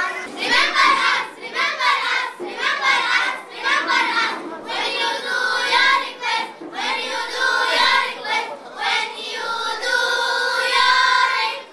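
A group of children singing together, the notes held longer in the second half.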